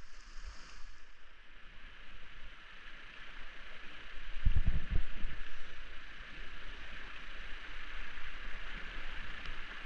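Rushing river current, a steady hiss of flowing water. A few heavy low thumps come about four and a half seconds in.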